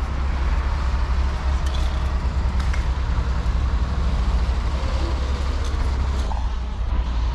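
City street traffic with a bus running close by: a steady low engine rumble under an even road noise, with a faint steady whine.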